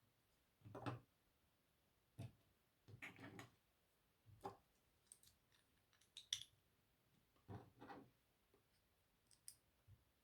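Faint, scattered clicks and brief rattles of plastic Lego pieces being handled and pressed together.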